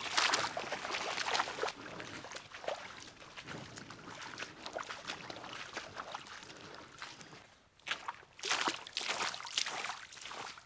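Footsteps splashing and sloshing through a shallow, muddy creek in an irregular walking rhythm, with a brief break just before the last few seconds and louder splashing after it.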